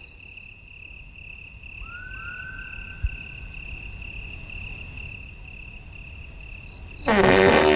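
A cricket's steady high trill as night ambience, with two faint rising whistles about two seconds in. A louder pitched call with many overtones cuts in near the end.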